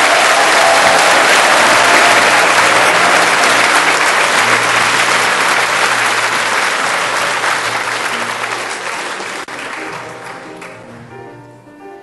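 Audience applauding loudly, with piano music playing underneath; the applause dies away over the last couple of seconds, leaving the piano notes.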